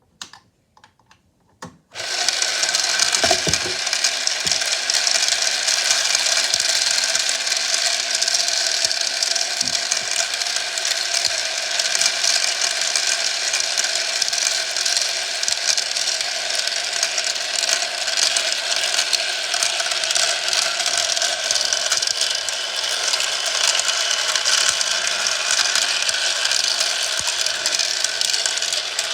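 Toy marble run running: after a few separate clicks, a steady mechanical clatter of gears and rattling marbles starts about two seconds in and carries on without a break.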